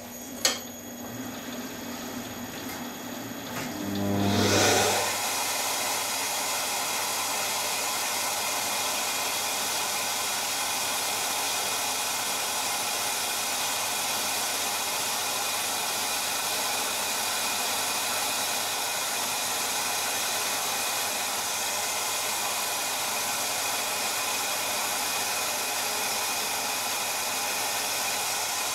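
Shop vacuum switched on about four seconds in, its motor rising in pitch, then running steadily at the cutting tool, over the lathe turning a phenolic blank as a Rotabroach annular cutter is fed into it. A click just after the start.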